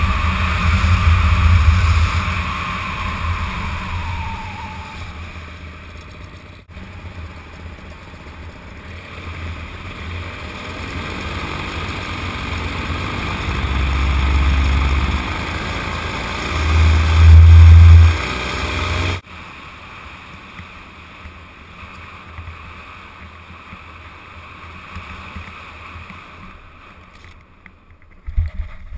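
Paramotor engine and propeller running, its pitch falling over the first few seconds as it is throttled back, then building again to its loudest and cutting off suddenly about two-thirds of the way through. After that there is only a quieter rush of wind, with a few knocks near the end at touchdown in the grass.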